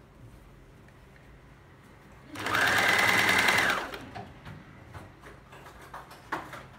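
Small home electric sewing machine stitching one short run of about a second and a half: its motor whine rises, holds steady and drops off as it stops. A few small clicks of fabric being handled near the end.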